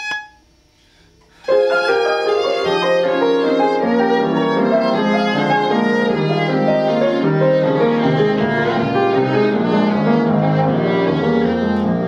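Viola played with the bow, a phrase of classical music with piano accompaniment, starting about a second and a half in after a short pause.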